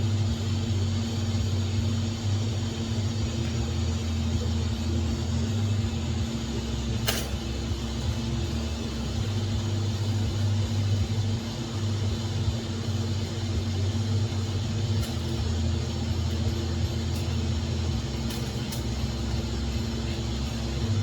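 TIG welding at about 55 amps with 3/32 filler rod: a steady electrical hum from the welder under an even arc hiss, with one sharp click about seven seconds in.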